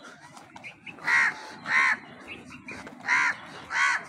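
A crow cawing: four harsh caws in two pairs, the first about a second in and the second pair about three seconds in.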